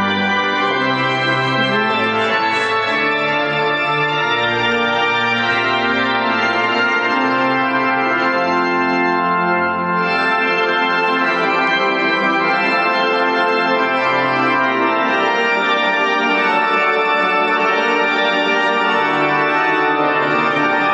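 Organ music: full held chords over slowly changing bass notes, steady and loud.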